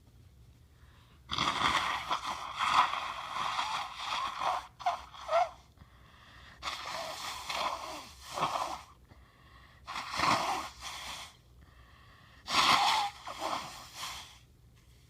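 A person blowing their nose hard several times, in five noisy blows of one to three seconds each, with short pauses between.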